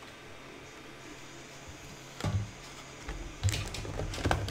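Handling noise from a metal collector's tin and its contents: a sharp click a little past two seconds in, then a run of clicks and taps with a low hum in the last second and a half.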